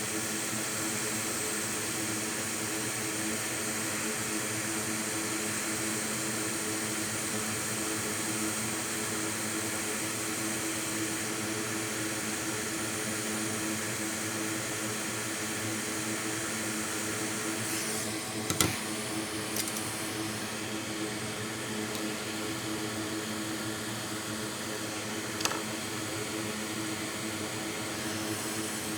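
Steady whoosh of a fan-driven air blower at a microsoldering bench, such as a hot-air rework station or fume extractor, with a faint steady hum in it. A few sharp clicks past the middle and one more later, from tools being handled.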